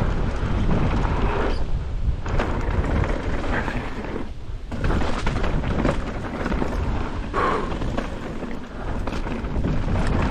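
Wind buffeting the microphone and mountain bike tyres rolling over a rough downhill trail, a steady low rumble that dips briefly about four and a half seconds in and again near eight and a half seconds.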